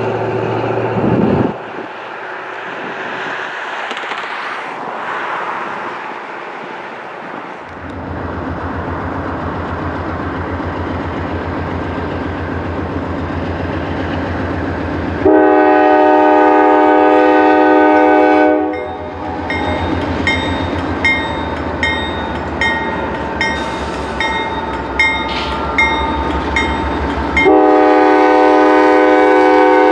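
Horn of a Norfolk Southern freight's lead GE C44-9W diesel locomotive sounding for a grade crossing: one long blast about halfway through and another starting near the end, over the low rumble of the approaching diesel locomotives.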